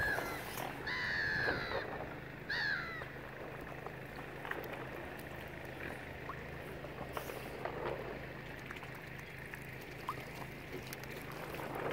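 Three short, high bird calls in the first three seconds, the middle one the longest and loudest, then small splashes and lapping of water against a steady low hum.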